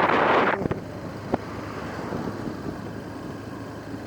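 Motorcycle riding along: a loud rush of wind on the microphone for the first half second, then a steady low engine drone with a few faint clicks.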